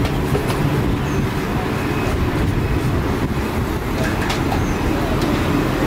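Steady low rumble of street background noise, with a few sharp clicks scattered through it.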